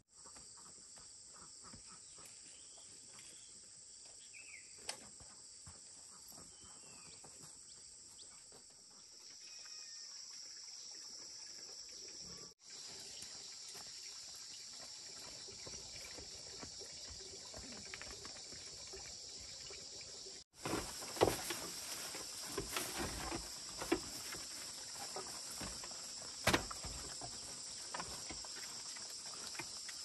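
Insects buzzing steadily in a high band, with faint scattered knocks and rustles. About two-thirds of the way in, the knocks and rustles become louder and more frequent.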